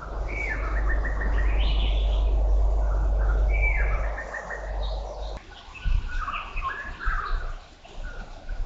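Birds chirping and calling, several short calls of quick repeated notes, over a low rumbling noise that fades out about five seconds in.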